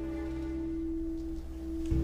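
Background film score: a single steady, held tone over a low drone, with a deeper swell coming in near the end.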